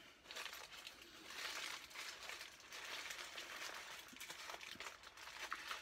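Faint rustling and crinkling of a paper fast-food bag as hands rummage inside it.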